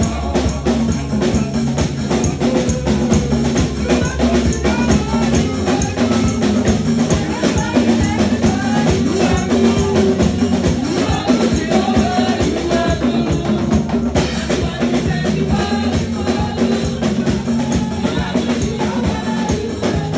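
Live praise music from a church band, with a drum kit and tambourine keeping a steady beat under sustained instrumental tones.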